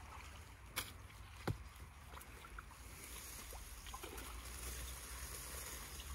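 Kayak paddle strokes in the water: soft dips and splashes as a wooden paddle pushes a homemade kayak off from the reeds. Two sharp knocks come about one and one and a half seconds in, over a low steady rumble.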